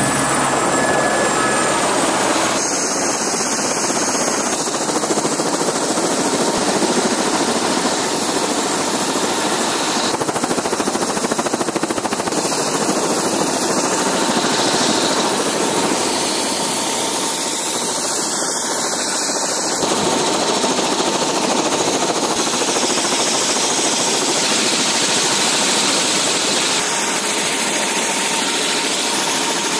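Helicopter running on the ground with its rotor turning: a loud, unbroken rush of rotor and engine noise with a thin steady turbine whine over it.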